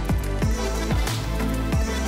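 Background music with a steady beat of deep bass drum hits.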